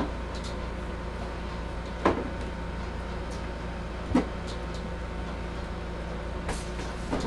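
Rigid acrylic cage panels knocking sharply a few times, about two seconds apart, as they are handled on a wooden workbench, over a steady low hum.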